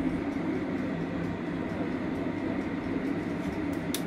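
A steady low mechanical hum and rumble, with a short sharp click near the end.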